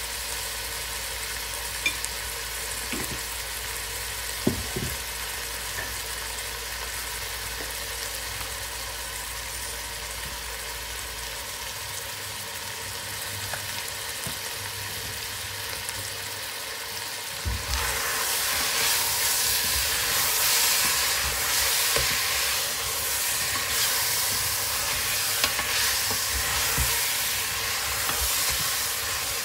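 Meat and onions sizzling in hot oil in a metal pot, with a few small clicks early on. A little past halfway the stirring begins: the sizzle gets much louder and busier, with the spoon scraping and knocking in the pot.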